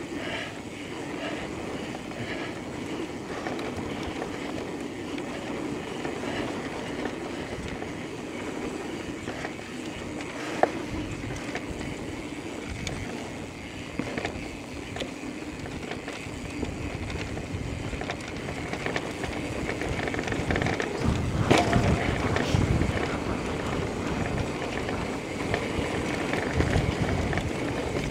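Electric mountain bike riding down a dirt singletrack: a steady rush of tyre and trail noise from the bike, with one sharp knock about ten seconds in and a louder, rougher stretch of jolts around twenty-one seconds in.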